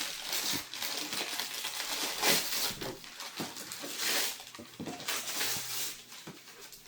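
Rustling and crinkling of packaging with light clicks and taps, irregular and uneven, as a gift box is opened and its contents unwrapped.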